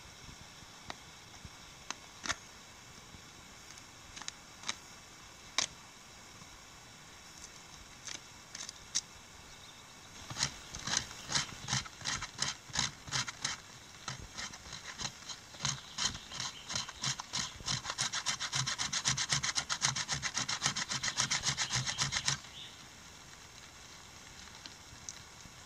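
A knife blade scraping birch bark into fine tinder, in quick repeated strokes. A few scattered light scrapes come first, then the strokes run on steadily, quicken to several a second and stop suddenly a few seconds before the end.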